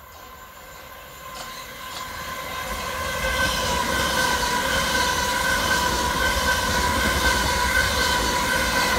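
A pair of Southern Class 377 Electrostar electric multiple units coming along the platform road and running past close by. It grows louder over the first three seconds, then holds as a steady rumble under a high, even whine of several tones.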